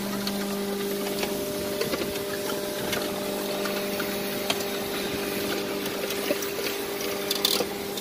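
Hydraulic system of a scrap baling press running: a steady hum from the pump unit with a constant hiss. Scattered light metallic clicks and ticks sound over it.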